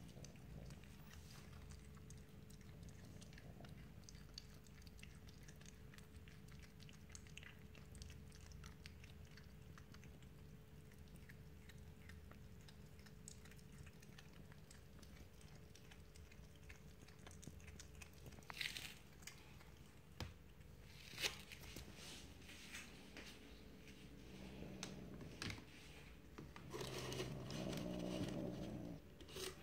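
Asian leopard cat chewing and gnawing on a chicken thigh, faint wet crunching and small ticks, with a few sharper crunches about two-thirds of the way in. Near the end a louder, low sound rises for about two seconds.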